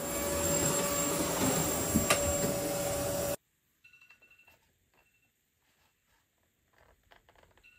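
Vacuum cleaner running with a steady whine, cutting off suddenly about three and a half seconds in. Faint clicks and taps of wooden photo frames being handled follow.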